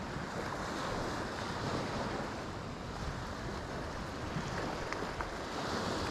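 Small sea waves washing onto a sandy beach in slow surges, with wind rumbling on the microphone.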